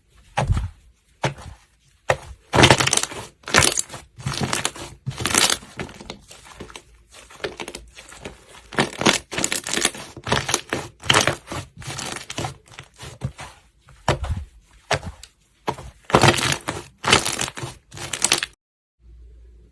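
Slime being squeezed and pressed by hand, making irregular bursts of crackling and crunching that stop shortly before the end.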